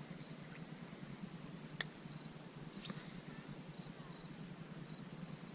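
Faint outdoor ambience: a low hiss with a thin, steady high tone, broken by a sharp click a little under two seconds in and a softer one about a second later.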